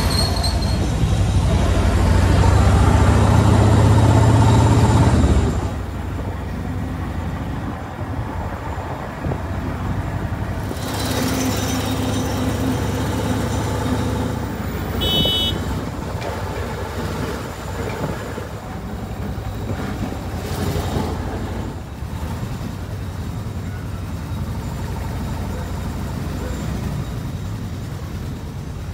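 Veteran car running along the road, its engine and road noise heard from on board: louder for the first five seconds or so, then a steadier, quieter rumble. A brief high-pitched horn toot sounds about fifteen seconds in.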